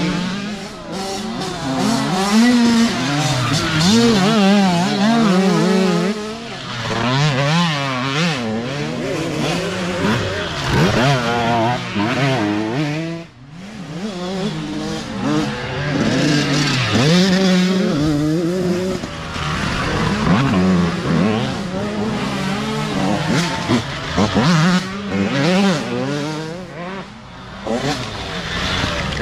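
Youth dirt bike engines revving hard and shifting as the bikes ride past along a wooded trail, the pitch rising and falling over and over. The engine noise drops off sharply about 13 seconds in, then builds again as more bikes come through.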